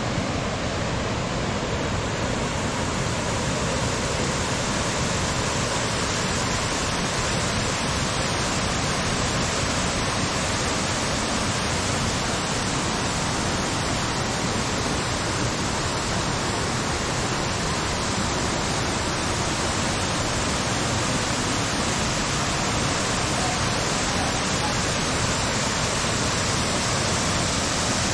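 A waterfall cascade rushing: a steady, even wash of falling water with no change throughout.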